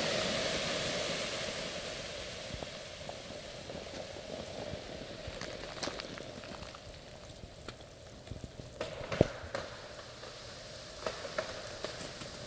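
Freezing rain falling on ice-coated trees and ground, a steady patter with scattered ticks. About nine seconds in, a single sharp crack stands out, typical of an ice-laden tree limb snapping under the weight of the ice.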